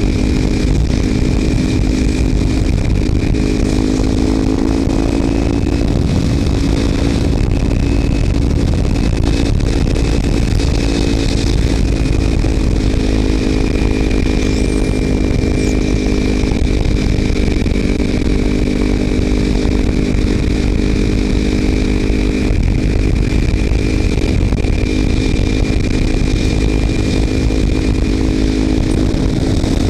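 Kawasaki Ninja 300's parallel-twin engine through a Screaming Demon slip-on exhaust with its baffle removed, cruising at steady revs. Heavy wind noise on the helmet camera sits under it.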